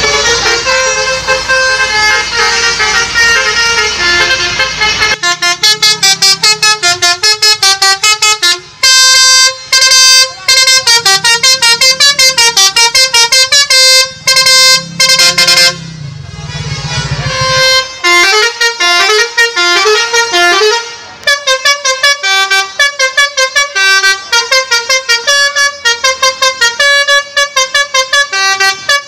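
A tour bus's basuri musical horn playing fast tunes, loud pitched notes sounding one after another in quick sequences. In the first few seconds an engine rumble sits under the horn.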